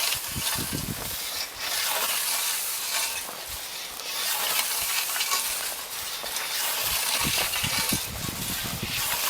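Scythe cutting standing wheat: a run of swishing, crackling strokes through dry stalks, swelling and dipping about every second or two, with occasional low rumbles.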